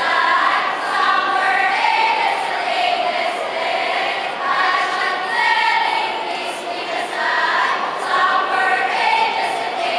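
A speech choir of mostly female voices performing in unison, the massed voices rising and falling in pitch together in phrases about a second long.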